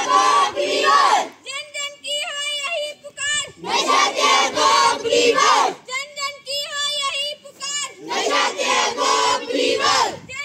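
Crowd of schoolchildren chanting slogans in call-and-response: a single voice calls out a line and the children shout it back together, three times over.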